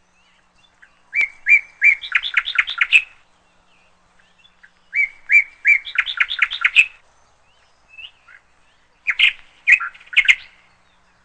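A songbird singing: two similar phrases of quick repeated chirps, then a shorter phrase near the end.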